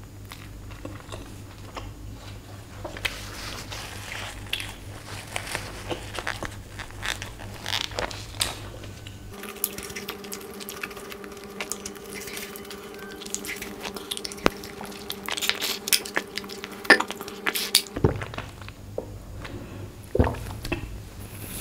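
Close-miked chewing with the mouth closed: scattered soft, wet mouth clicks and smacks over a steady low hum. The hum changes to a higher set of tones about nine seconds in and goes back shortly before the end.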